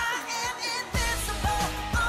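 Pop-style intro music: a melody over a beat, with a heavier bass and kick drum coming in about a second in.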